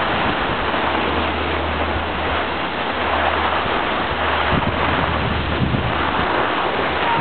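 Steady rushing hiss of skis gliding over packed snow, with wind buffeting the microphone.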